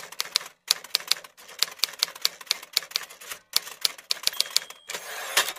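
Typewriter sound effect: quick, uneven key strikes in short runs with brief pauses. A short ringing tone comes about four seconds in, then a rattling carriage-return slide that ends in a loud clack near the end.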